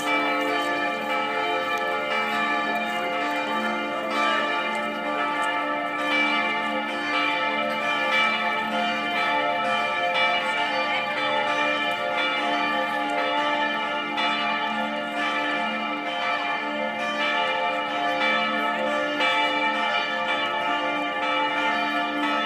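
Several large church bells ringing together in a full peal, their strikes overlapping into a continuous wash of tones, with the deepest bells swelling and fading every second or two.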